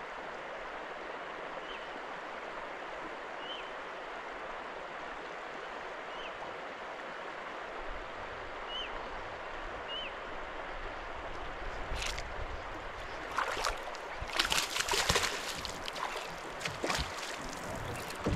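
Water lapping and trickling against a small boat, a steady wash of sound with a few faint short high chirps. From about twelve seconds in come clusters of sharp knocks and rattles.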